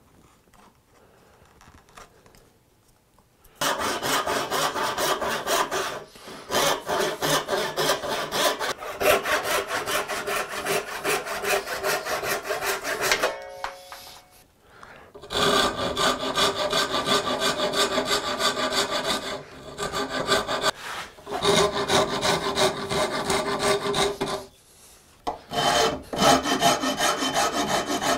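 A hand file worked back and forth over a wooden plane tote, shaping a glued-on repair block for the broken horn into shape. It is quiet for about the first three and a half seconds, then comes in long runs of rapid scraping strokes with two short pauses.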